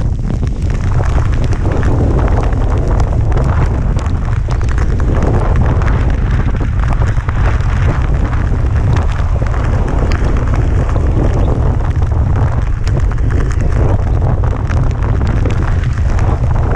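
Wind buffeting a rider's camera microphone while riding a road bike at race speed: a loud, steady low rumble with a rushing hiss over it.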